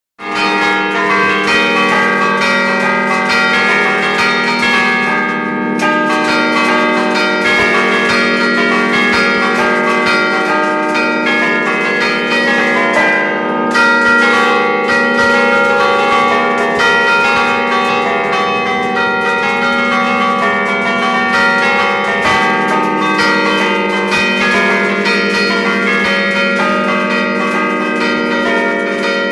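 Five church bells, a 1951 Achille Mazzola set tuned in E-flat (slightly flat), rung together at close range in a continuous peal with many overlapping strokes. The sound begins abruptly.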